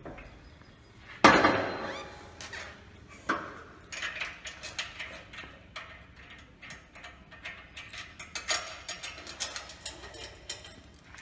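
Steel chain and metal fittings being handled on a steel sawmill carriage frame. One loud metal clank rings about a second in, a smaller one follows, then a run of light chain-link clinks and rattles.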